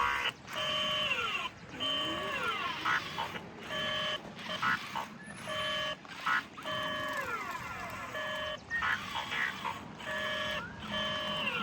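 Built Sillbird STEM robot kit's speaker playing its electronic robot-language sound effects: beeping held tones broken by falling pitch glides, repeating about once a second.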